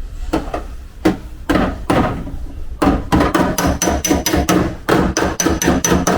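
Body-shop hammer striking the damaged steel sheet of a Toyota Sienta's body, straightening the collision damage with a hard, ringing 'konkon' sound. A few spaced blows come first, then a fast, even run of about five strikes a second from roughly three seconds in.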